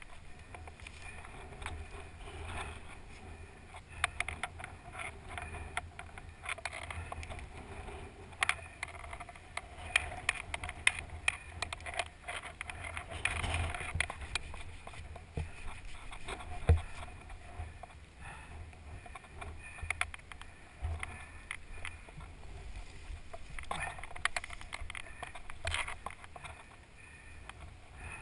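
Wind rumbling on the microphone, with scattered knocks, scrapes and rustling of dune grass around an ATV lying on its side after a crash. The engine is not heard running. The sharpest knocks come about halfway through.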